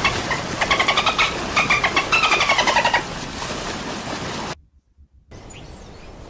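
Bottlenose-type dolphin vocalising: a rapid clicking chatter with pitched squeaks, some gliding downward, for about three seconds. Then a steady hiss that drops out briefly near the end.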